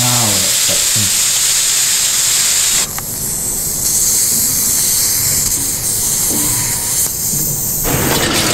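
Air hissing through the valves on top of antique hot-water radiators as they are opened, first a tire-style (Schrader) valve stem and then a radiator bleed valve. This lets air into a system that is being drained of water, which was pulling suction. The hiss changes abruptly about three seconds in and goes on, a little duller, until near the end.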